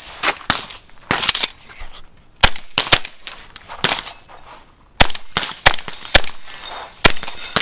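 Benelli M2 semi-automatic shotgun firing a fast string of shots at steel targets: about ten sharp, loud reports at uneven intervals, roughly half a second to a second apart, with mechanical clatter between them.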